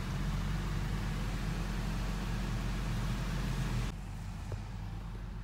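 Steady car cabin noise of an idling car: a low engine hum under an even hiss. Near the end it drops suddenly to a quieter hiss, with the hum carrying on.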